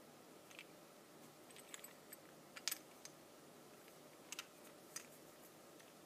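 Faint, scattered small clicks and rattles of a Master Lock 410 lockout padlock being turned over in the hand, its shackle knocking in the plastic body. The loudest click comes a little under halfway through.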